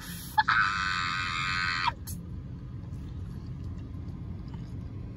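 A car horn sounds once, held at a steady pitch for about a second and a half, over the low steady rumble of a car.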